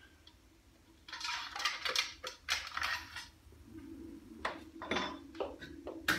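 Hard plastic and metal parts of a 3D-printed Nerf blaster and its jam rod clattering and rattling as they are handled and set down, followed by a few sharp clicks.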